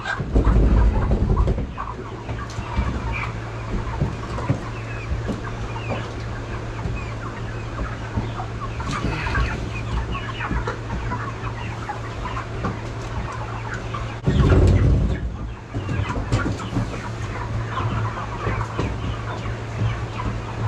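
Meat chickens clucking in plastic transport crates, many short calls scattered throughout over a steady low hum. Two louder low rumbling noises, each over a second long, come at the very start and about fourteen seconds in, as the crates are handled.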